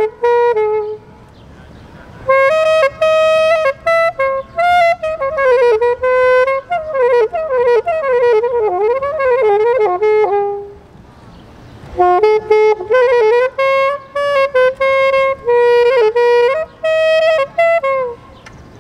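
Alto saxophone played solo: phrases of held notes and quick wavering runs, with two short breaks, about a second in and again near the middle.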